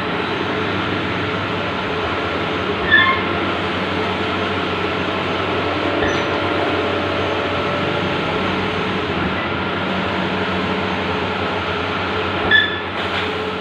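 Bluewin large-format outdoor banner printer running with a steady mechanical hum and whir. Two brief high chirps come about three seconds in and again near the end.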